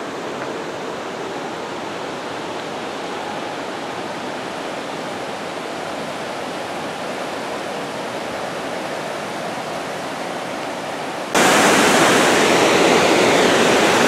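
Steady rush of creek water running over shallow rocky rapids. About eleven seconds in it jumps to a louder, brighter rush of water.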